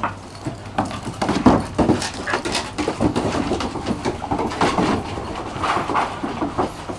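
Dogs moving about on a wooden deck, their claws clicking and tapping on the boards in many quick, irregular taps.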